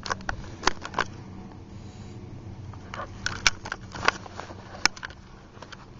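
Irregular crunching and knocking of skis and boots working through snow, a dozen or so sharp crunches at uneven intervals over a low steady rumble.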